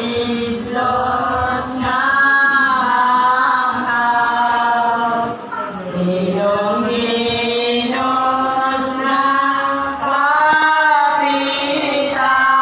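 A small congregation singing gozos, a Filipino devotional hymn to a saint, in a slow chant-like melody of long held notes, with short breaks between phrases.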